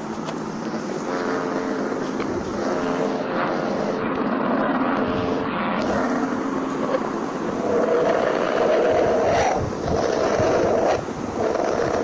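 Recording presented as the sound of the planet Mercury: a steady rushing, rumbling drone. It carries faint held tones in the first half, then grows into louder swells that briefly drop out twice near the end.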